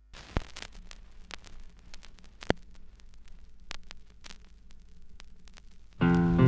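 Old-film soundtrack crackle: a faint hiss and hum scattered with irregular clicks and pops, two of them louder, near the start and about two and a half seconds in. About six seconds in, guitar music starts.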